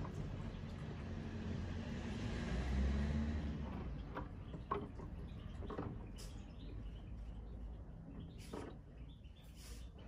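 AEG/Electrolux washing machine running with a carpet inside: a steady motor and drum noise with a low hum swells about three seconds in, then dies away, leaving scattered faint squeaks and clicks.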